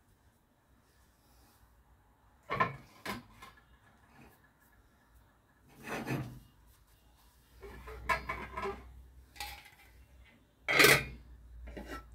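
Cookware handling on a gas stove: a series of short scrapes and knocks from a spatula working a crepe in a nonstick frying pan and the pan being handled, as a metal lid is set on the pan.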